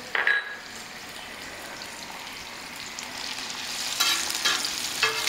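Chopped onions sizzling in hot oil on a flat iron tawa, after a short sharp sound at the very start. The sizzling grows louder, and from about four seconds in a spatula scrapes across the iron as it stirs them.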